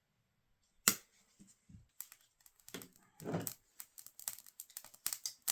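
Small sticks of dry kindling being handled and laid for a fire: a sharp wooden knock about a second in, a couple of duller thuds around three seconds, then a run of light clicks and taps.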